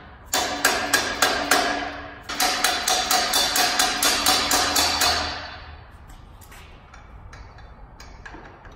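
Hammer blows on the Toyota 2JZ engine's crank pulley, struck in quick runs of about five a second with the metal ringing, in two bursts, then only faint taps in the last few seconds.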